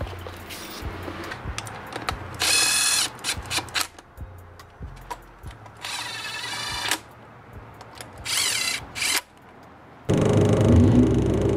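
Power tool whirring in three short bursts, each about half a second to a second long. About ten seconds in a louder, steady rumble takes over.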